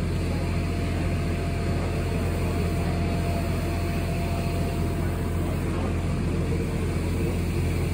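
A steady low mechanical hum, even throughout, with a faint thin tone that fades out about five seconds in.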